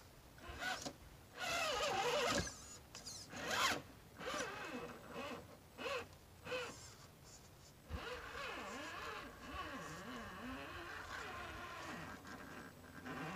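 Axial UMG10 1/10-scale RC rock crawler's electric motor and geared drivetrain whining in short bursts, the pitch rising and falling with the throttle as it crawls. From about two-thirds through, the whine runs on longer, wavering in pitch.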